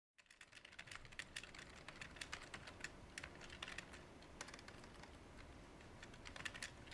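Fingers typing on a Dell computer keyboard: quick, irregular, faint key clicks. They start a moment in, after silence, over a low hum.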